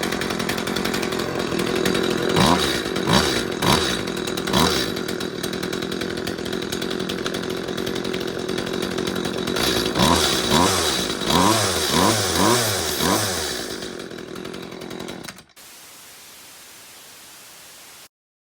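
Echo CS271T two-stroke top-handle chainsaw running at idle, blipped up to high revs four times and then five or six times in quick succession. It then winds down and stops about fifteen seconds in.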